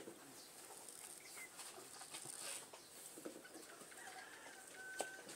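Faint farmyard background: a chicken clucking and small birds calling, with a short thin whistled call near the end and a single click just before it.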